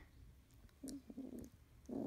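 A Labrador puppy's low grumbling growl: a short one about a second in, and a louder one starting near the end.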